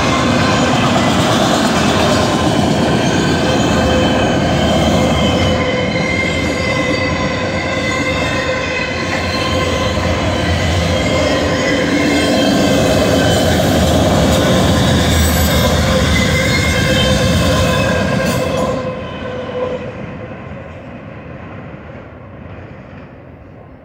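Freight train of autorack cars rolling past, a steady rumble of wheels on rail with squealing tones from the wheels held over it. About 19 seconds in the sound drops sharply as the last car goes by, then fades away.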